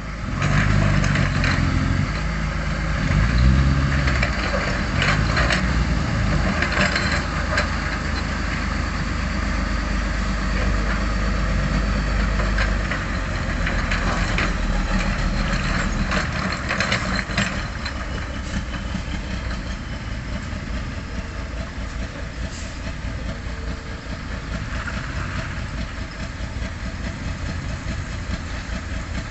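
Heavy truck engine running steadily, heavier for about the first dozen seconds and lighter after, with bursts of rattling and knocking now and then.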